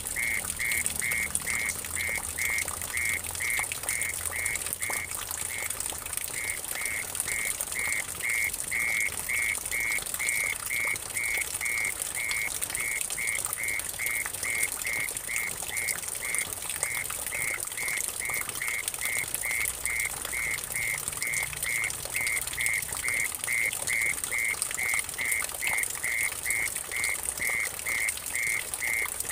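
Mole cricket calling in a steady pulsing churr, about three pulses a second with a couple of short breaks, over a constant hiss of water dripping and splashing into a puddle.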